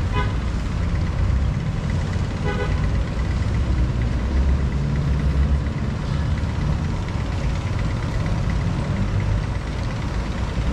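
Street traffic noise, a steady low rumble, with two short vehicle-horn toots: one at the start and one about two and a half seconds in.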